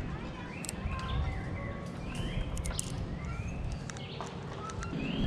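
Birds calling: many short arching whistles and chirps overlapping, over a low rumble and scattered sharp clicks.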